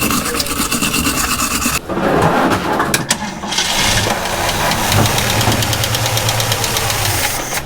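Scraping for about two seconds as the battery terminals are cleaned, then the 1967 Ford Mustang's starter cranking the engine over steadily without it firing. The cranking comes after the terminals were cleaned to cure a poor ground.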